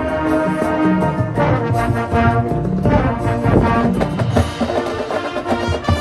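High school marching band playing its field show: held brass chords that shift every second or so, over drum and front-ensemble percussion hits.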